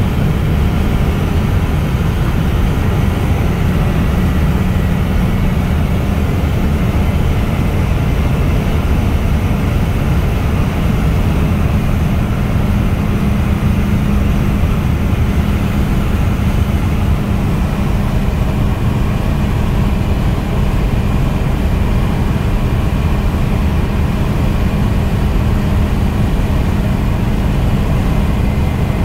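Steady road and engine noise inside a car's cabin at highway speed: a constant low rumble with a steady hum, unchanging throughout.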